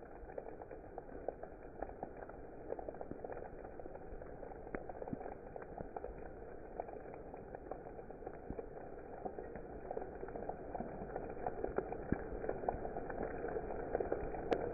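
Hail and heavy rain pelting waterlogged ground and leaves: a dense patter of many small impacts that grows gradually louder.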